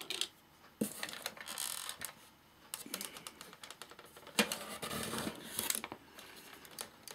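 Irregular small clicks and taps with two stretches of scraping, from hands and tools working on the opened chassis of a Sansui AU-X111 amplifier while its parts are freed and prised up.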